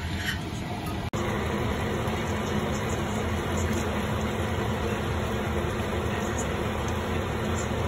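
Steady fan hum, like a kitchen extractor fan, over a wok of noodle soup simmering while it is stirred with a spatula. There is a brief dropout about a second in.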